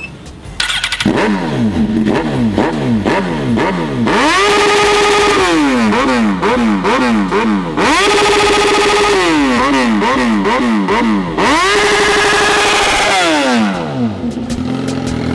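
Suzuki GSX-R 1000 inline-four superbike engine being revved: a run of quick throttle blips, each rising and falling in pitch. Then three long revs are held at a steady high pitch before dropping back. It settles to a low idle near the end.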